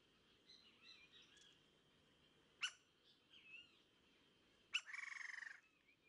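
Woodpecker calls: a single sharp note about halfway through, then a louder nasal, rapidly stuttering call lasting nearly a second near the end, with faint chirps of other birds between.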